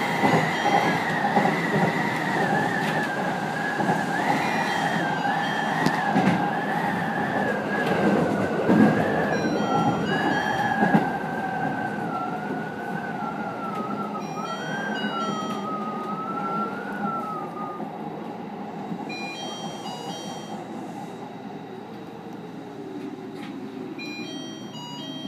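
JR 811 series electric train's motor and inverter whine, heard from the driver's cab. The wavering whine falls slowly in pitch as the train slows, over rumbling running noise, and dies away about three-quarters of the way through.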